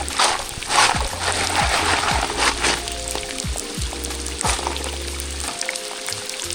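Rain pattering and water sloshing as a gold pan is worked, a crackly patter with small splashes. Background music with sustained notes plays over it.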